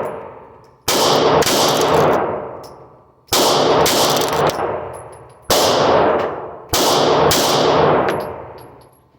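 Taurus G2C compact pistol firing about seven shots at an uneven pace, some in quick pairs, each shot echoing and dying away over a second or two. The pistol cycles through the string without locking up.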